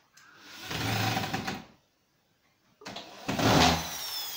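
Cordless drill run in two bursts of about a second each, driving screws into the wall bracket; after the second burst the motor whine falls away as it spins down.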